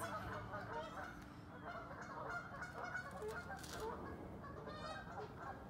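A flock of waterfowl calling, many overlapping calls in a steady chatter.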